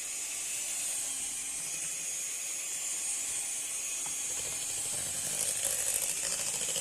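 Electric hand mixer running steadily, beating cream cheese and sugar into a smooth filling, growing a little louder and rougher about five seconds in.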